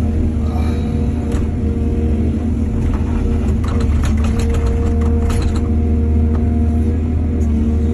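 Excavator's diesel engine running steadily, with a rapid run of clattering knocks starting about three seconds in and lasting a couple of seconds.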